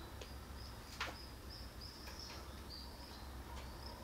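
A bird chirping a run of short high notes, over a steady low rumble, with one sharp click about a second in.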